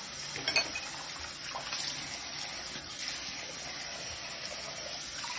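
Bathroom tap running steadily into a sink, with hands catching and splashing the stream. A brief sharp knock about half a second in.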